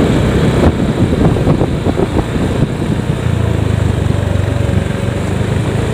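Small motorcycle engine running as the bike rides along, with road and wind noise over it; the engine note settles into a steady low hum about three seconds in.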